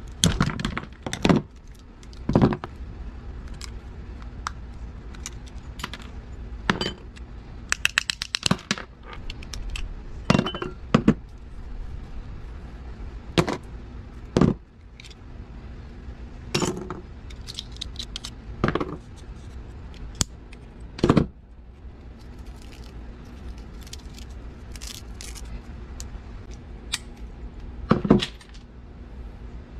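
Pliers cracking apart the plastic housings of microwave parts such as a turntable motor, with small metal and plastic pieces dropping and clinking on a metal workbench. Irregular sharp clicks and clinks, with a quick rattle about eight seconds in.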